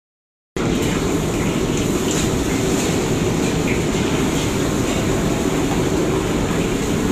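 Steady roar of a commercial kitchen's wok burners and extractor hood, with a few faint clinks of utensils on the woks as a wok is tossed. It cuts in about half a second in, after a moment of silence.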